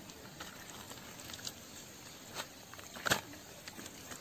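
Hands rubbing a wet masala marinade into a whole raw chicken: soft, irregular squelches and small clicks, with a louder one about three seconds in.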